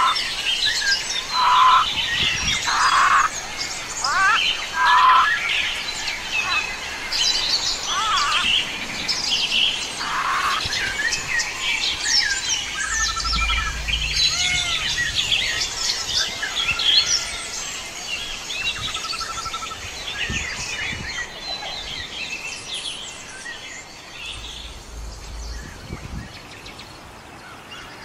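A chorus of several forest birds calling and singing over one another, with quick chirps, trills and short whistles, fading gradually over the second half.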